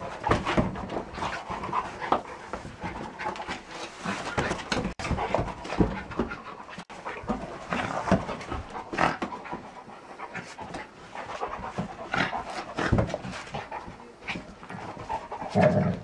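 Jack Russell terrier and flat-coated retriever play-wrestling, with rapid, uneven panting and snuffling throughout and a louder burst just before the end.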